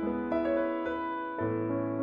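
Background music: a slow piano piece, chords struck every half second or so and left to ring.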